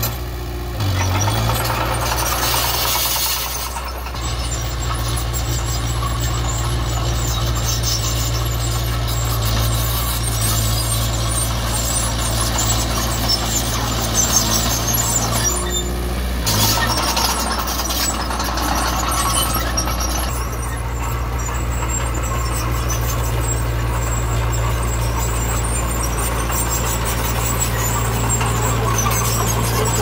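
Komatsu D20P crawler bulldozer's diesel engine running steadily, with squealing and clatter from its steel tracks.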